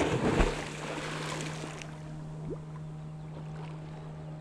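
A person diving head-first into the sea with a loud splash, followed by a second or so of water churning and fizzing as the splash settles. A steady low hum runs underneath.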